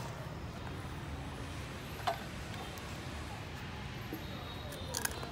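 A few sharp light clicks over a steady low background rumble: one about two seconds in, with a short ring, and two close together near the end. They come from chopsticks and a toasted rice cracker knocking against a plate and a wire grill.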